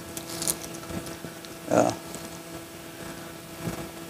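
Wet nylon gill net being pulled up out of canal water by hand, water dripping and splashing off the mesh, with one louder splash about two seconds in.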